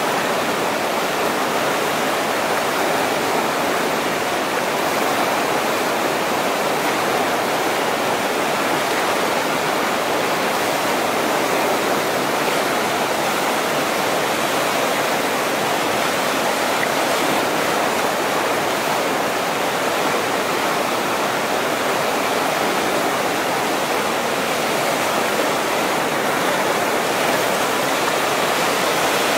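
Steady rush of churning whitewater rapids, a continuous dense noise of fast river water breaking over rocks.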